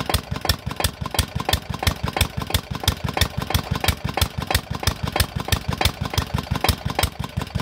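A 16-horsepower Chinese single-cylinder diesel engine on a tube well runs steadily, its exhaust beating evenly about six times a second.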